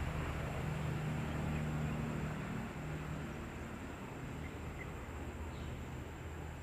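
Outdoor ambience: a low, steady droning hum that is strongest for the first two or three seconds and then fades, with an even background hiss and a few faint high chirps.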